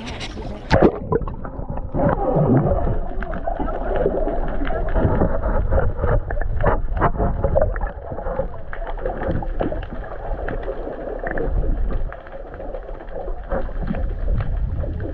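On-board sound of a small fishing boat on the water: a steady low rumble of wind and water, with scattered knocks and indistinct voices now and then.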